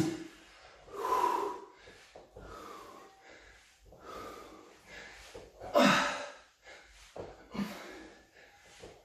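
A man breathing hard from exertion during back extensions: a run of loud exhalations about every second and a half, the loudest, about six seconds in, with a bit of voice in it.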